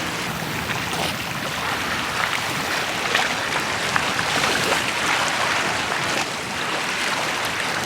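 Water washing at a rocky shoreline: a steady rushing wash with small faint splashes through it.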